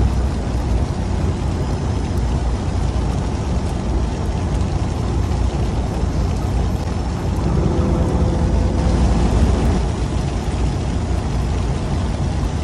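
Fishing boat's engine running steadily, a low rumble under a hiss of sea and wind.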